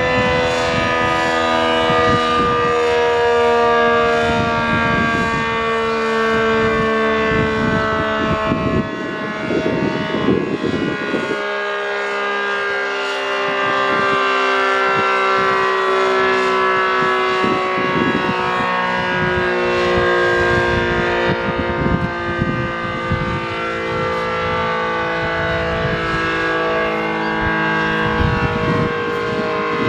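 ACA Screamer S-10 outdoor warning siren sounding several tones at once that slowly sink in pitch as it winds down. A gusty low rumble runs underneath. The owner puts the long, slow wind-down down to a broken-out, sucked-down top lid that leaves the rotor almost no air to work against, and to a reverse-wired motor.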